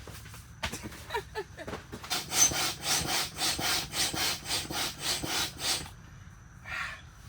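Hand or foot air pump inflating an air mattress: quick, regular pumping strokes, about three a second, that start about two seconds in and stop near six seconds, after some scraping and squeaks.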